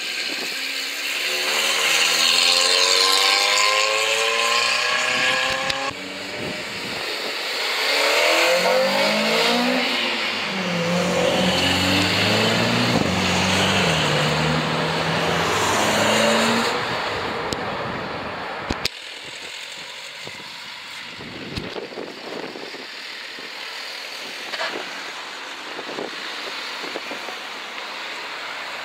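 Car engines accelerating away one after another, revving with rising pitch as they pull off. The sound drops off sharply about two-thirds of the way in, leaving quieter engine noise with a few short sharp cracks.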